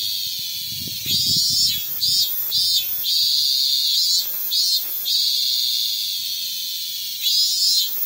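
Min-min cicada (Hyalessa maculaticollis) singing loudly: a steady high-pitched drone broken three times by runs of rapid pulsed notes, about four a second, around two seconds in, midway, and near the end.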